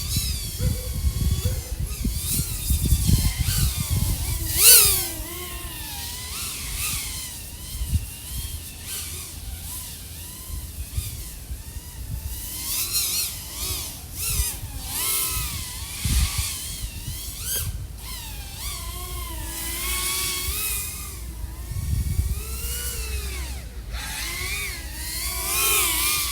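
The four brushless motors and propellers of an iFlight AOS 3.5 V5 FPV quadcopter whine, their pitch rising and falling constantly with the throttle, as heard through the drone's onboard camera microphone. Wind buffets the microphone in the first few seconds, and about five seconds in there is a sharp rising surge as the throttle is punched.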